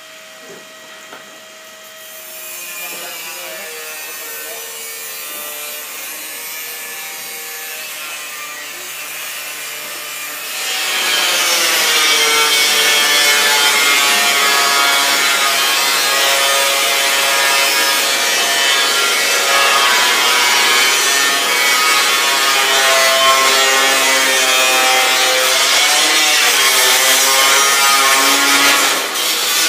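Power tool working stainless steel: a scraping noise with a motor pitch that wavers under load. It starts about two seconds in, gets much louder about ten seconds in, and stops abruptly near the end.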